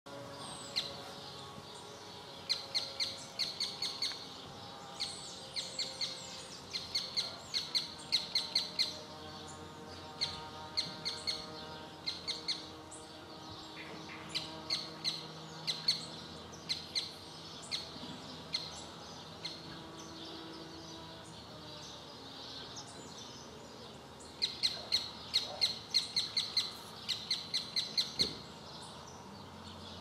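Birdsong: repeated runs of quick, sharp, high chirps, several notes to a run, with short pauses between runs.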